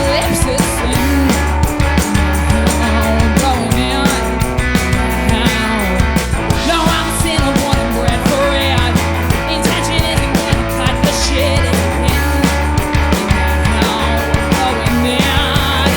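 A rock band playing loud and steady: electric guitar, bass guitar and drums, with the drums hitting all through.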